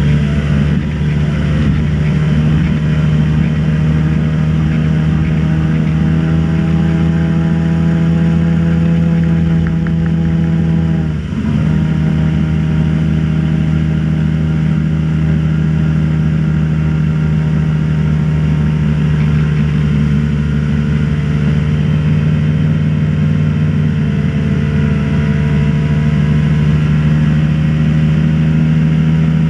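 Motorboat engine running steadily under way, its pitch dipping briefly about eleven seconds in before picking back up.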